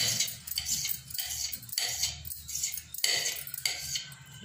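Kitchen knife cutting thinly rolled dough on a rolling board: quick repeated strokes, about two a second, the blade scraping and tapping against the board as it scores the sheet into nimki strips.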